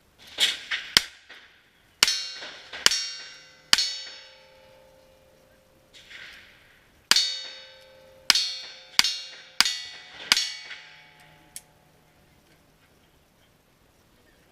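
A string of gunshots at a cowboy action shooting stage, with steel targets ringing after hits: three quick shots, then three about a second apart, a pause of a few seconds, then five more shots in quick succession.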